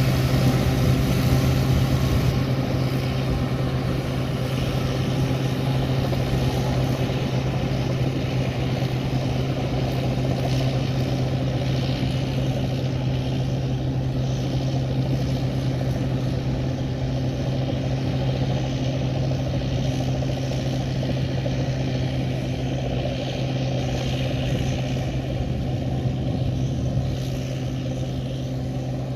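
Large rice combine harvester's engine running steadily, with a constant droning hum that holds one pitch throughout.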